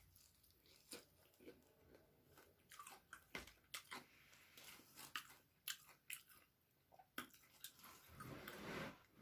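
Faint chewing of a mouthful of fish: scattered short wet mouth clicks and smacks throughout, with a soft breathy stretch near the end.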